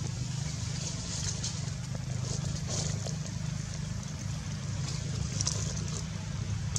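Steady low rumble, like a distant engine or traffic, with faint high chirps or rustles now and then.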